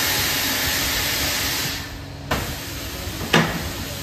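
Air hissing out of a motorcycle tyre as it is deflated, a steady rush that stops a little under two seconds in. Two sharp knocks follow, about a second apart.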